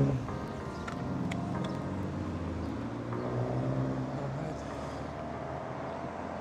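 Road traffic: a car's engine running close by with a steady low hum, and a slowly rising engine tone in the second half as it pulls away or passes.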